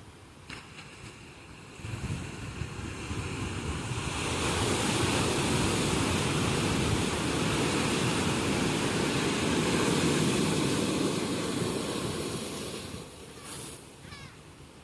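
Ocean surf breaking on the shore: a wave swells about two seconds in, rushes at its loudest for several seconds, then washes back and fades near the end.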